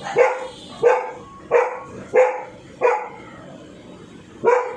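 A dog barking: five sharp barks in quick succession, about two-thirds of a second apart, then a pause and one more bark near the end.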